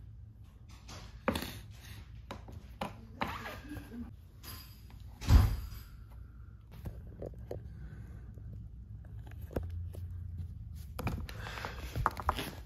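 Handling knocks and clicks of a hard plastic Pelican case as a worn wheel is swapped and a metal axle pin is slid through the wheel housing. There is one loud, heavy thump about five seconds in.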